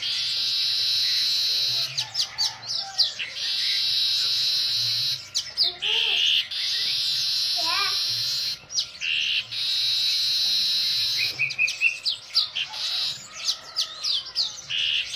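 Male manyar (weaver bird) singing: long, buzzing, sizzling hisses of a second or two, repeated several times and broken up by quick chirps and short whistled glides.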